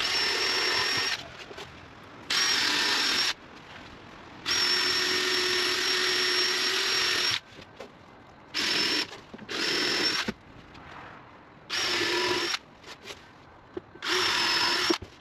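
Power drill run in about seven separate bursts, each at a steady pitch. Most last about a second; one a third of the way in runs for about three seconds.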